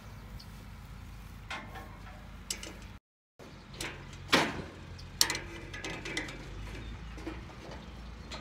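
Hand tools working a bolt loose on a haybine: irregular ratchet-wrench clicks and metal-on-metal clinks and clanks, the loudest clank about halfway through. The sound cuts out completely for a moment about three seconds in.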